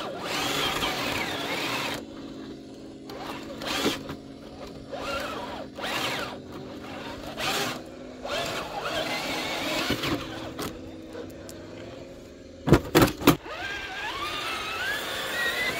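Electric motor and geared drivetrain of a scale RC rock crawler whining in repeated surges as it crawls up a rocky slope. Three sharp knocks come close together near the end.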